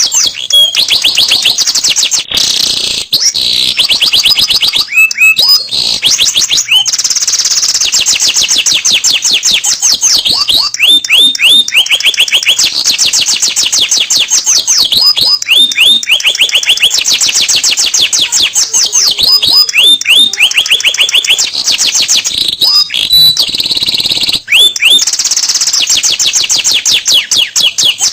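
Domestic canary singing nonstop: long, rapid trills of repeated high notes, switching from one trill to the next every second or two.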